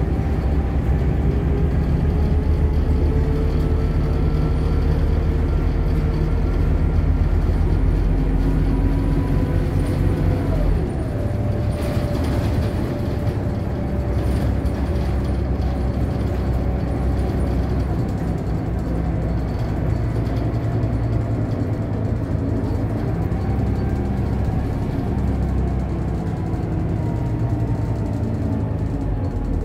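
A city bus's engine and drivetrain running with road noise, heard from inside the passenger cabin as it drives. The engine note drops about ten seconds in, then pulls steadily again, with a faint rising whine near the end.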